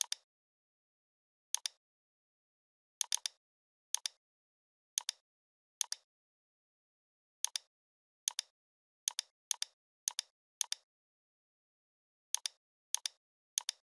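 Computer mouse left-button clicks, about fifteen, irregularly spaced half a second to a second and a half apart, many heard as a quick press-and-release pair, with dead silence between.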